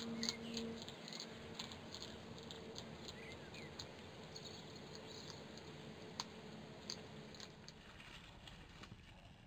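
European hedgehog crunching dry cat kibble from a plate: irregular small crunches and clicks, thinning out near the end.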